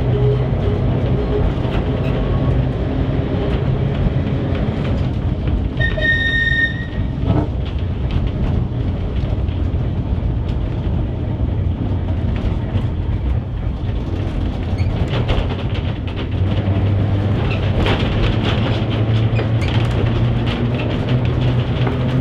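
Manx Electric Railway Winter Saloon tramcar running along the line, heard from inside the wooden saloon: a steady rumble of wheels on rail with a low motor and gear hum that strengthens in the second half. A brief high-pitched tone sounds about six seconds in.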